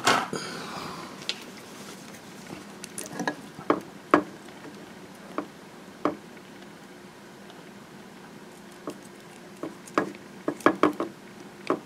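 Scattered light clicks and taps of a hand crimping tool being handled and fitted over an insulated spade terminal, with a quicker run of clicks near the end.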